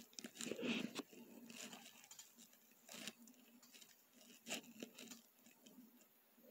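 Near silence: faint room tone with a low hum and a few soft clicks and rustles, about a second in, at three seconds and around four and a half seconds.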